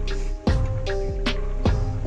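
Background music with a steady beat, drum hits about two or three times a second over held instrumental notes.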